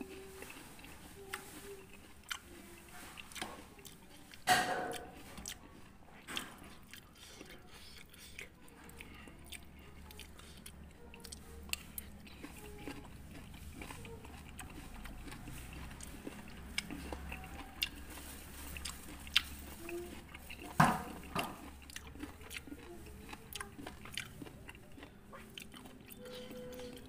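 Close-up chewing and biting of raw fruit pieces in rujak sauce, with wet mouth sounds and small scattered clicks of a metal spoon and fork against an earthenware bowl. Two louder knocks stand out, about four and a half seconds in and again around twenty-one seconds.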